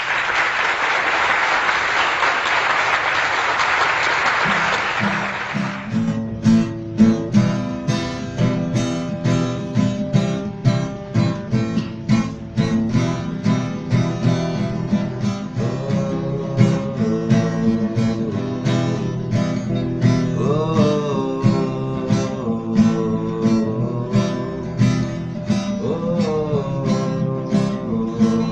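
Song intro: about six seconds of steady hiss like falling rain, then acoustic guitar strumming a steady rhythm. From about halfway in, a sliding melodic lead line plays over the strumming.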